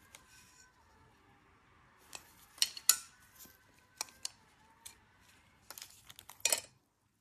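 Hard plastic clicks and taps from a clear acrylic pen case as a nail rhinestone picker pen is handled and fitted into it: scattered sharp knocks, two loud ones a little before halfway, and a quick run of clicks near the end.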